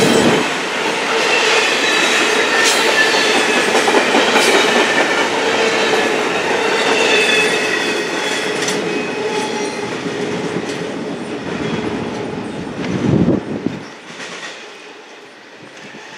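Double-stack intermodal freight cars rolling past: a steady rumble of steel wheels on rail, with high squealing and scattered clicks. A loud clatter comes near the end, then the noise drops away as the end of the train moves off.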